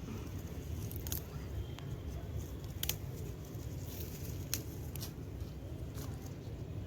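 A few small, sharp clicks and rustles spaced out over several seconds, as of something being handled, over a steady low rumble.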